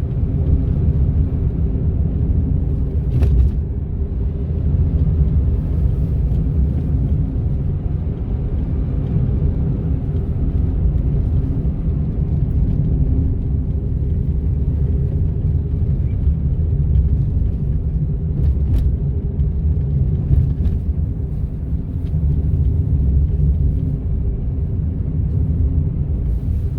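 Honda N-ONE kei car driving, heard from inside the cabin: a steady low rumble of road and engine noise with a steady hum above it, and a few faint clicks.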